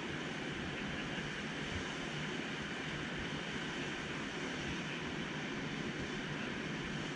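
Steady wind noise on the microphone: an even rushing hiss with an irregular low buffeting rumble and no distinct separate sounds.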